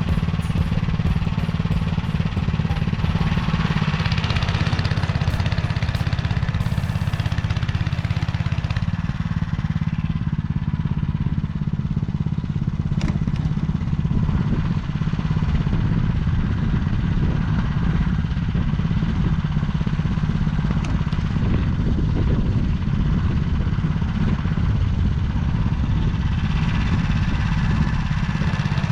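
Motor Sich walk-behind tractor engine running steadily, driving a rotary tiller through the soil.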